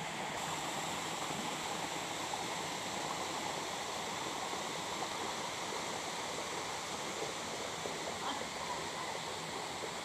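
Steady rushing of a forest stream and small waterfall, water running over rocks.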